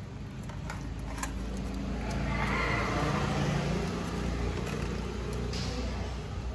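An engine hum that grows louder over the first few seconds and then fades away, as of a vehicle going past.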